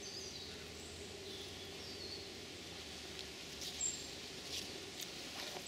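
Quiet woodland ambience: faint bird chirps now and then, with a few soft rustles in the second half.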